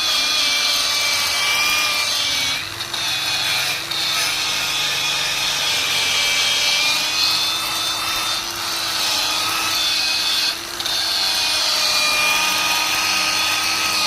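Electric power tool spinning a surface-cleaning wheel against metal to prepare it for welding. Its motor whine holds steady, wavering slightly in pitch under load, and drops briefly a few times, about three seconds in, near four seconds and again past ten seconds.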